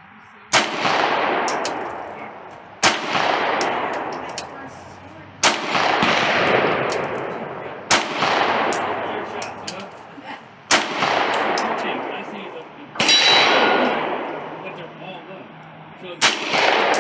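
Glock 19 9mm pistol fired seven times in slow, deliberate shots about two and a half seconds apart. Each shot echoes for a second or two and is followed by a few faint high ticks.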